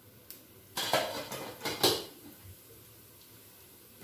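A steel spoon clinking against a frying pan and dishes, about four sharp clinks in the first two seconds. After that there is only a faint steady hiss of hot oil with tempering seeds and dals in the pan.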